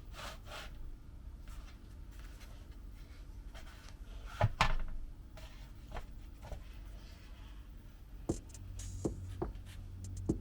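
Scattered light knocks, clicks and rubbing of objects being handled, with a louder double knock about halfway through; a low steady hum comes in near the end.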